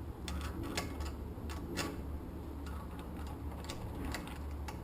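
Scattered light clicks and taps of small parts being handled as a carburetor gasket kit is fitted onto the carburetor studs of a Predator 212 engine, over a steady low hum.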